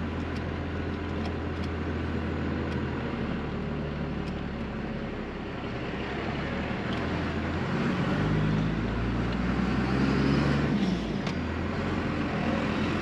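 1997 Dodge 2500's 12-valve Cummins 5.9 L inline-six diesel running as the truck drives off, its pitch changing a few times as it pulls through the first gears. It grows louder from about eight seconds in.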